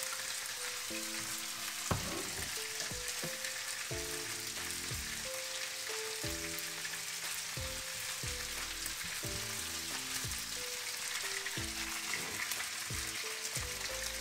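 Julienned ginger and chicken pieces sizzling steadily in hot oil in a wok, with a single knock about two seconds in.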